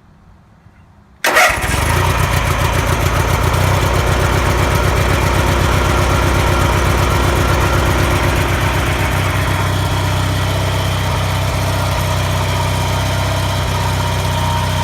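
1985 Roper lawn tractor's Briggs & Stratton engine starting from cold on choke at half throttle: it catches almost at once about a second in, then runs steadily with a fast, even beat.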